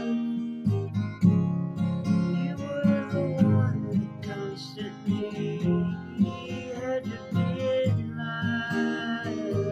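Acoustic guitar playing a song's chords, picked and strummed in a steady rhythm.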